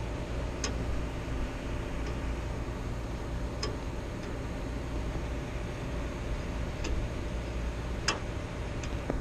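Steady low mechanical hum with five short, sharp clicks scattered through it, the loudest about eight seconds in, as wiring is handled inside a rooftop HVAC unit.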